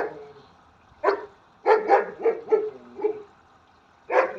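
A dog barking in short, sharp barks: one about a second in, then a quick run of four or five, and another near the end.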